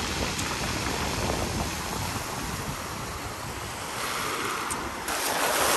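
Rough sea surf: waves breaking, with the wash of water growing louder near the end as a wave runs up the shore. Wind buffets the microphone.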